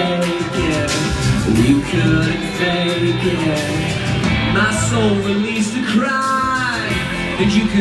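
Live rock band playing: electric guitar and bass with a male lead vocal.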